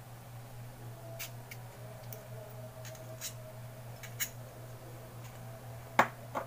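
Scattered small clicks and taps of a Zippo lighter and its parts being handled, with a sharper click about six seconds in and another just after; a steady low hum runs underneath.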